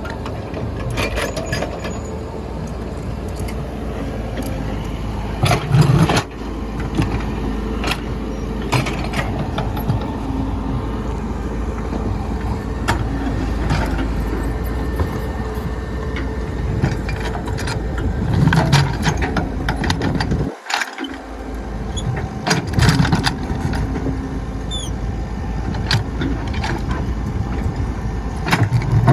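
Excavator running steadily while working against a large rock, with knocks and scrapes of bucket and stone breaking in at irregular moments. The sound drops out briefly about two-thirds of the way through.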